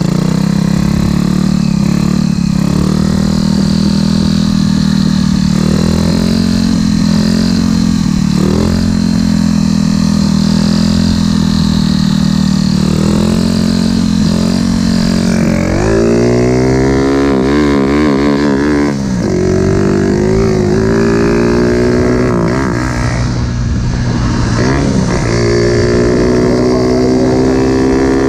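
Motorcycle engine running at a steady pitch, then revved hard about sixteen seconds in, its pitch climbing and wavering as it accelerates and eases off before settling at a higher, steady speed.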